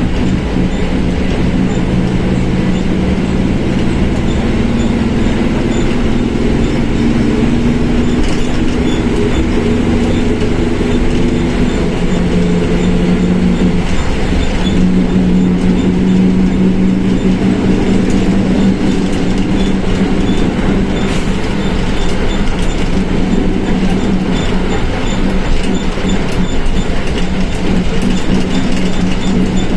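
Volkswagen Volksbus 17.230 OD bus running under way, its engine and drivetrain droning together with a growling transmission, a sign of drivetrain wear. The pitch shifts and climbs a little over the first ten seconds or so, then holds steady.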